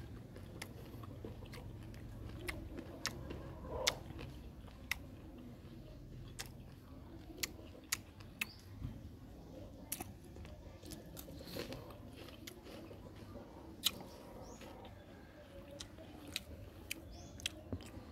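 A person biting and chewing crisp raw fruit: irregular sharp crunches about once a second, with softer chewing in between.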